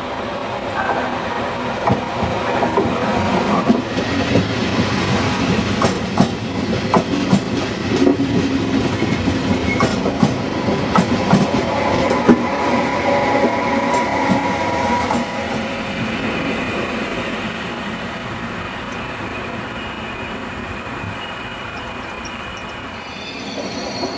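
A train rolling past, its wheels clicking over rail joints in quick runs. The sound is loudest about halfway through, then eases off to a steady rumble, with a thin high squeal near the end.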